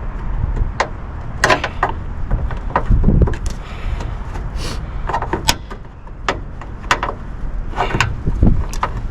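Plastic trim clips being pried out of a car body panel: a series of sharp clicks and knocks with brief scraping as the panel is worked loose. These fragile clips tend to break when pulled.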